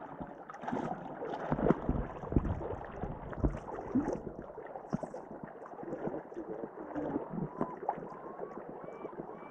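Irregular splashing and sloshing of shallow seawater, as someone wades through it.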